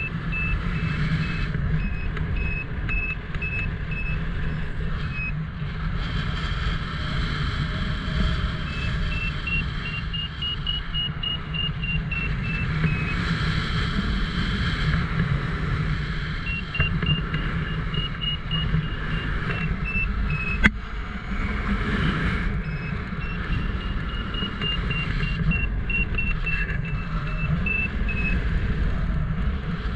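Wind buffeting the microphone in flight, with a paragliding variometer beeping in rapid, evenly spaced pulses whose pitch rises and falls with the climb rate. One sharp click about two-thirds of the way through.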